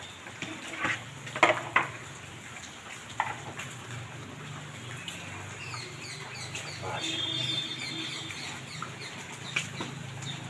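Several dogs eating from plates on a tiled floor, with a few sharp knocks and clatters between one and two seconds in, and a brief high call about seven seconds in.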